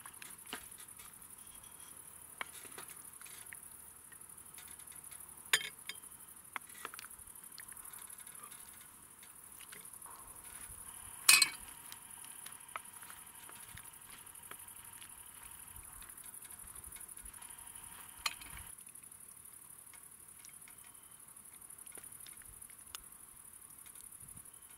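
Night insects chirring in a high, steady trill, broken by a few sharp clinks of utensils against cookware while food is dished up, the loudest about eleven seconds in.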